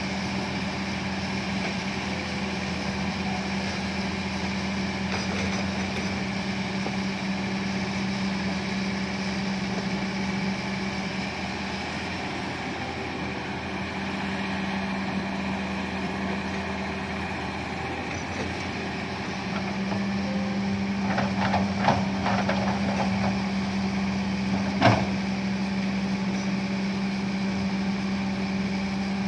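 Kobelco SK200 hydraulic excavator's diesel engine running with a steady hum that eases off partway through and comes back. A few metallic clanks come about three-quarters of the way in, followed by one sharp knock.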